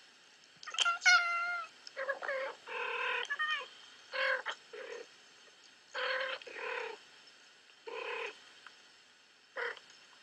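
Two cats meowing and yowling back and forth in short, speech-like calls, about a dozen over ten seconds in clusters with pauses, the first a long call that glides in pitch. It is playback of the well-known two talking cats clip through a screen's speaker.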